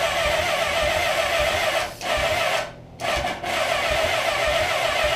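Starter motor cranking a 1983 Suzuki GS850's inline four-cylinder engine with a steady whine and a regular pulse. The cranking breaks off briefly about two seconds in and again just before three seconds, then resumes. The engine does not catch, even on starting fluid.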